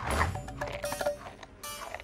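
Cartoon soundtrack music with short sliding-pitch comic sound effects and a few sharp hits.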